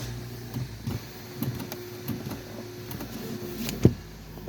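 Nissan Juke engine running at idle just after start-up, a steady low hum with a higher whirring tone in the middle, and scattered small clicks. A sharp click sounds near the end.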